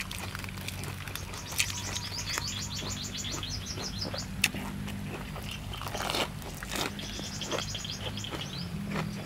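A bird calling in two runs of rapid, high, repeated chirps. Between and under them come sharp crunches and clicks of chewing and handling crisp food.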